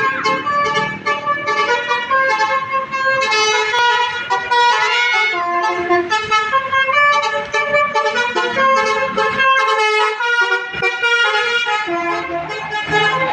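Bus telolet horn, a multi-tone musical air horn, playing a fast tune of quickly changing notes.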